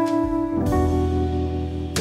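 Background music: sustained instrumental chords over a steady bass line, the chord changing about half a second in.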